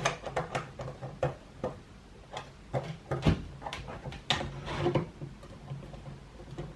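Irregular metallic clicks and knocks of a skate tool working a skateboard wheel's axle nut, tightening it slightly so the wheel still turns freely.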